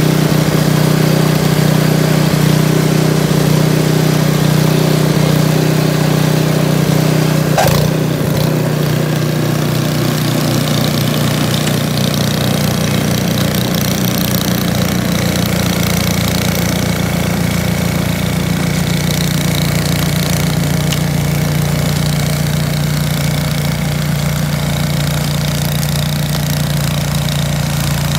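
A two-stage gas snow blower's engine running steadily as it clears snow. There is a brief click about eight seconds in, after which the sound drops slightly and carries on steady.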